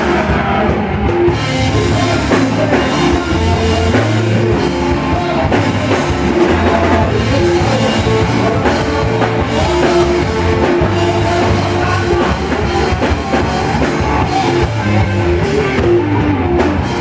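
Rock band playing: drum kit and guitar.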